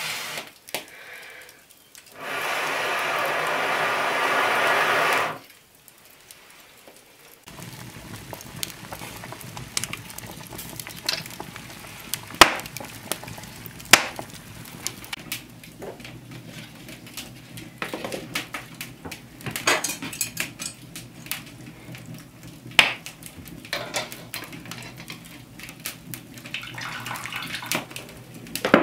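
Air blown through a fire-blowing tube onto glowing hearth embers: a steady, loud rush lasting about three seconds. Later come scattered sharp clicks and clinks of a metal pot and utensils over the open wood fire.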